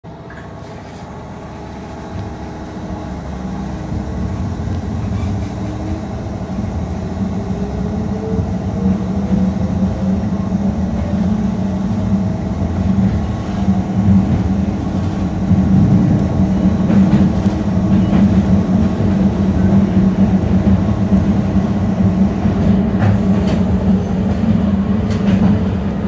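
Toyama Chiho Railway 10030-series electric train heard from inside the driver's cab, accelerating: a low running rumble grows louder over the first fifteen seconds or so while a motor whine rises in pitch. Wheels click over rail joints a few times later on.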